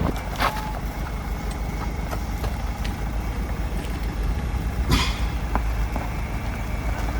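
Off-road 4x4 engine running steadily at low revs, with a few sharp knocks over rough ground, the loudest about five seconds in.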